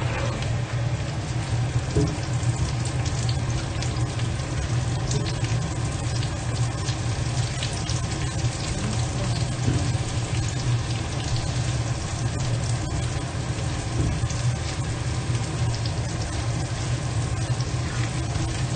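Pork belly, onion and garlic sautéing in a stainless steel wok: steady sizzling full of small crackles, with the scrape of a plastic spatula stirring, over a steady low hum.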